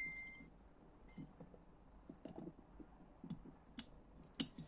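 A struck metal part rings out at one high pitch and fades within the first half second, followed by faint, scattered clicks and taps from small metal engine parts being handled, with a couple of sharper clicks near the end.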